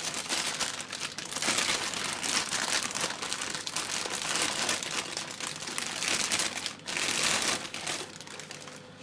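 Plastic wrapping crinkling and rustling as a boxed engine is unwrapped from its double plastic bag, dying down near the end.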